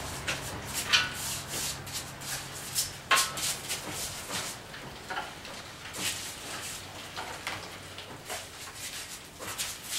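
Nylon bristle brush scrubbing a freshly machined cast-iron Chevy 350 engine block with soapy water, in irregular rasping strokes, washing out grinding and honing residue. A couple of strokes, about one and three seconds in, are louder.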